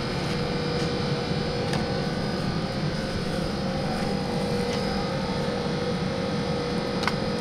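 Steady background noise of a busy market: a constant low rumble with a faint steady hum, and a few faint clicks.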